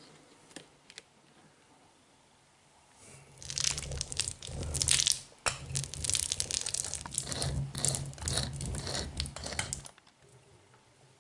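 Spiked uncapping roller rolled over a capped honeycomb frame, crackling and tearing as its pins pierce the wax cappings. The crackling starts a few seconds in and stops abruptly near the end.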